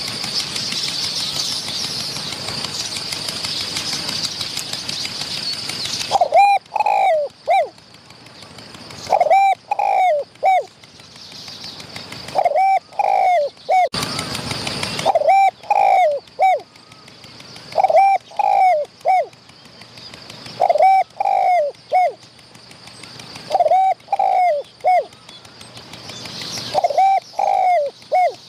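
Spotted dove cooing: a short phrase of three or four coo notes, repeated about every three seconds, beginning about six seconds in after a steady hiss. A brief rush of noise breaks in around the middle.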